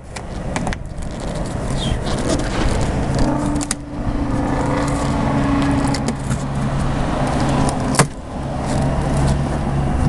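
A car engine running steadily close by, with three sharp metal clanks from a clothing donation bin's drop chute being worked by hand: at the start, about four seconds in, and near the end.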